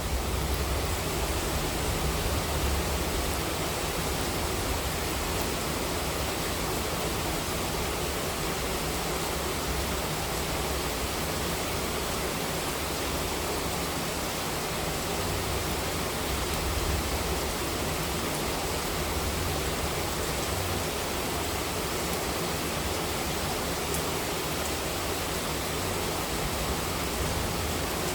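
Heavy monsoon rain falling steadily: a dense, even hiss with a faint low rumble underneath.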